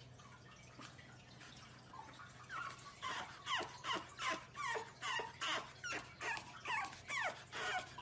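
Pug puppy whimpering in a run of short, high yelps, each falling in pitch, about two or three a second, starting a couple of seconds in.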